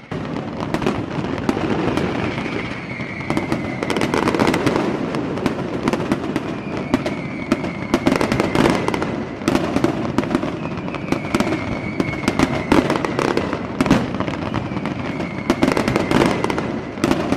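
Fireworks going off in quick succession, a dense run of crackles and pops, with a falling whistle about every four seconds.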